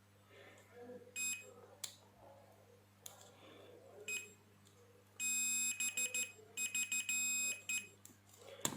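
Digital multimeter's continuity beeper: a short beep about a second in, then from about five seconds a steady beep broken by several brief gaps for about three seconds, each beep marking the probed switch contacts closing. Light clicks of the probes between the beeps.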